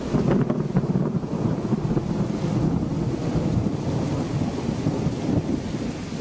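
Thunderstorm with heavy rain: a continuous low rumble of thunder over the wash of the downpour.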